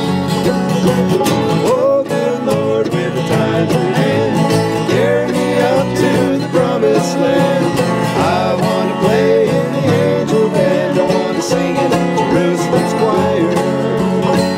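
Bluegrass band playing an instrumental passage on mandolin, five-string banjo, acoustic guitar and upright bass, with quick picked notes over a steady bass.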